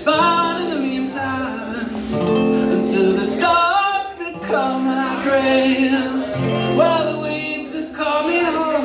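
A live band song: acoustic guitar playing under a singing voice that holds long, wavering notes.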